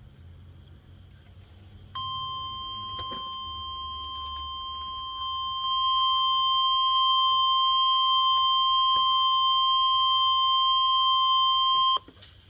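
NOAA Weather Radio 1050 Hz warning alarm tone: one steady, piercing electronic tone that comes on about two seconds in, steps up louder a few seconds later and cuts off suddenly after about ten seconds. The tone signals that a warning message, here a severe thunderstorm warning, is about to be broadcast.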